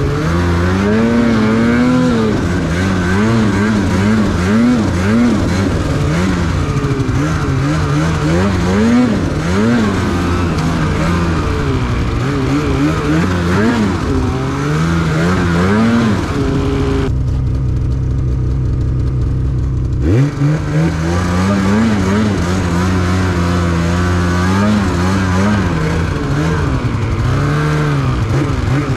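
Snowmobile engine running under way, its pitch rising and falling again and again with the throttle. The note holds steady for about three seconds past the middle, then revs up again.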